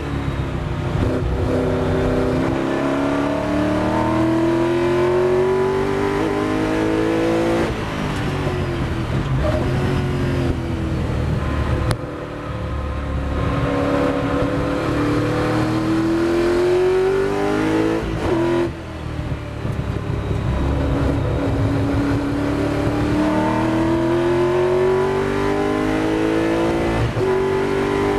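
1966 Ford GT40's V8 racing engine heard from inside the cockpit, pulling hard with its pitch climbing through each gear. The engine note drops suddenly at gear changes and lifts, about 8, 12, 18½ and 27 seconds in.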